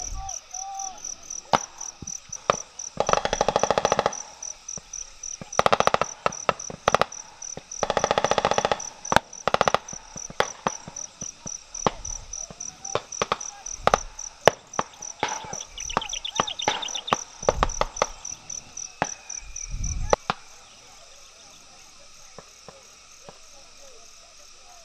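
Gunfire: several rapid bursts of automatic fire and many scattered single shots. Under it runs a steady high pulsing chirp of insects that stops about twenty seconds in.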